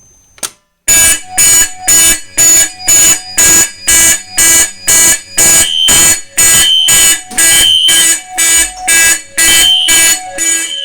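A manual pull station is pulled with a sharp click. A moment later the fire alarm horns sound in loud, even pulses, about two a second, with a second, higher horn tone joining now and then. The horns are a System Sensor P1224MC horn strobe and a Space Age AV32 horn.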